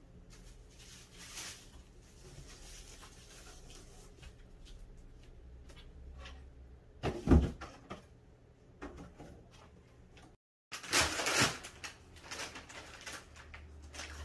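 A cardboard delivery box and its plastic bag being opened by hand: scattered rustling and crinkling, a single loud knock about seven seconds in, and a louder spell of crinkling plastic being torn around eleven seconds.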